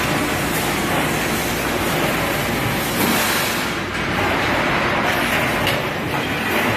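Steel drum beading machine running, its grooved rollers turning a steel drum shell and pressing rolling rings into it: a steady mechanical rumble of factory machinery. The higher hiss drops away about four seconds in.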